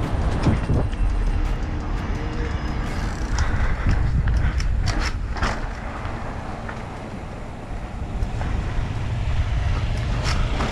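Steady low rumble of wind and motion noise on the microphone of a riding camera, with sharp clicks and rattles around the middle and again near the end.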